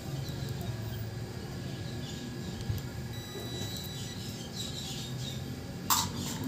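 Background ambience: a steady low hum with faint, scattered high chirps like small birds, and one sharp click about six seconds in.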